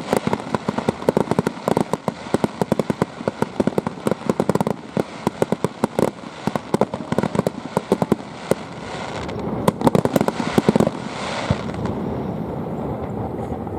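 Fireworks going off: a dense, rapid crackle of many small pops, with a few louder bangs about ten seconds in, followed by a lingering rumble.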